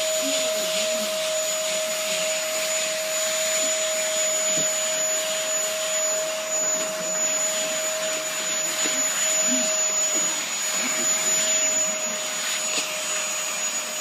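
Vacuum cleaner running steadily, its motor giving a constant whine over the rushing of air as the floor head is pushed over carpet.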